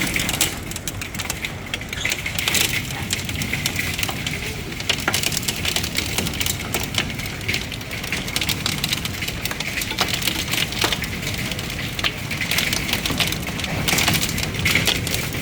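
Hailstones pelting down in a dense, steady clatter of many rapid sharp hits over a constant hiss.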